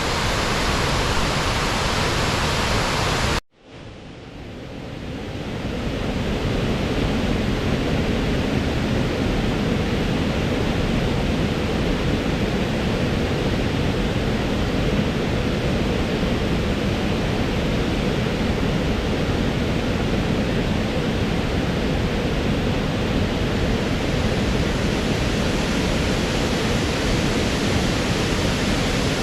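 Brush Creek Falls waterfall rushing: a loud, steady noise of falling water. About three and a half seconds in, it cuts out suddenly and swells back up over the next two seconds or so.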